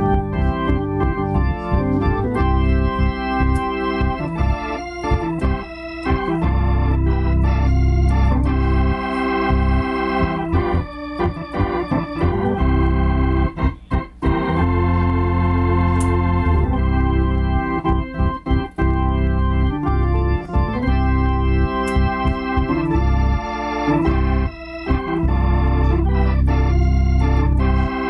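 A two-manual console organ being played: sustained chords over a bass line, the notes held and changing every second or so, with a couple of brief breaks about halfway through.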